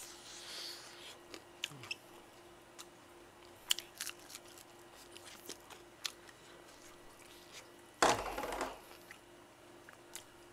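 Close-miked chewing of crispy fried chicken: scattered small crunches and mouth clicks. A short, louder rush of noise about eight seconds in.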